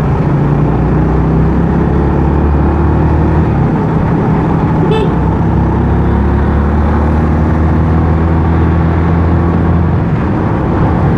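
Honda RS150R's single-cylinder four-stroke engine running at steady cruising revs while being ridden, its pitch holding level, with road and wind noise mixed in.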